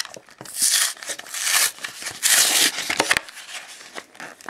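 Plastic and cardboard packaging of a Pokémon trading-card booster pack crinkling as it is handled, in three rustling bursts with a few sharp clicks.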